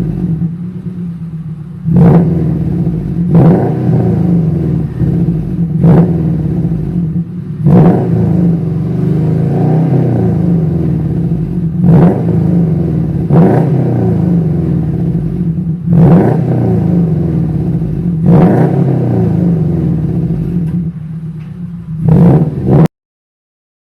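Non-turbo 2002 Subaru Impreza's flat-four engine free-revving, with sharp throttle blips every one to two seconds over a steady idle, heard through unequal-length headers, a cat-deleted 2.25" midpipe and an Invidia N1 catback exhaust. The sound cuts off suddenly near the end.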